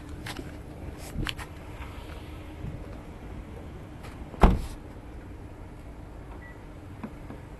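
Clicks and knocks from the Hyundai Veloster Turbo's open driver door as the driver gets out, with one loud thump about four and a half seconds in. A faint steady hum runs underneath.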